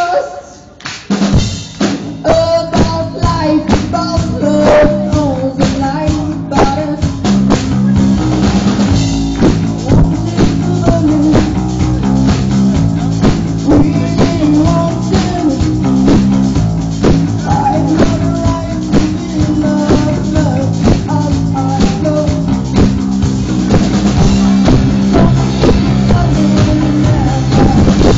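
A rock band playing live on stage: drum kit with snare and bass drum driving a steady beat under electric guitars. The level drops briefly at the start, then the drums come in about a second in and the full band plays loudly.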